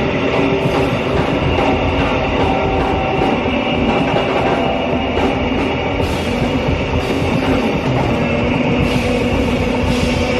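Live band playing instrumental rock: electric guitar and bass over drums and keyboards, with cymbal strikes standing out several times in the second half, heard from among the audience.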